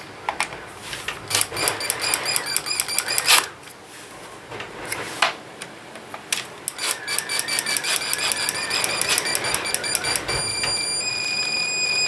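Cordless drill-driver driving screws through a plastic electrical back box into a breeze-block wall. It runs twice, briefly about a second in and again from about seven seconds, each time a motor whine with rapid, even clicking, settling into a steady whine near the end.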